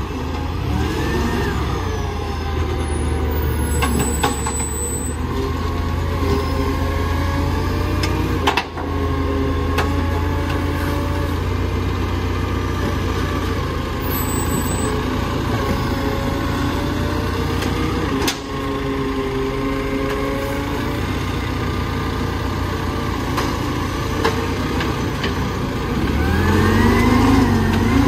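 Garbage truck's diesel engine running steadily close by, then revving up near the end as the truck moves off.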